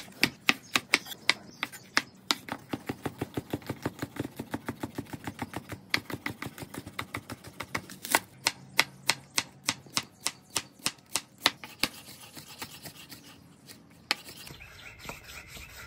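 Chef's knife slicing bell peppers and onion against a cutting board, a quick steady run of knife strikes about three to four a second. The strikes thin out to faint taps in the last few seconds.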